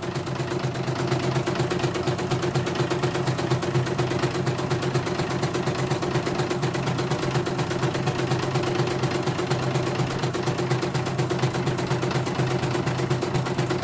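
CNY portable computerised embroidery machine stitching a design: a steady motor hum with a rapid, even needle rhythm.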